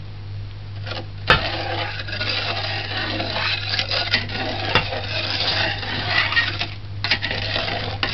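Long metal spoon stirring sugar into sorrel drink in a large aluminium pot: liquid swishing, with the spoon scraping and clinking against the pot, including sharp clinks about a second in and again near five seconds. A low steady hum runs underneath.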